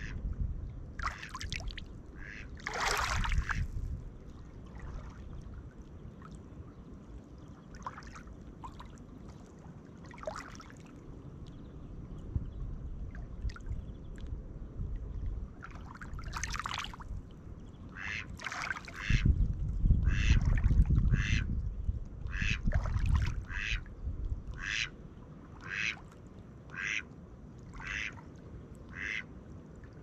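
Small waves lapping and washing over a pebble shore, with a duck calling: a few scattered calls early on, then a steady series of short quacks about once a second through the second half.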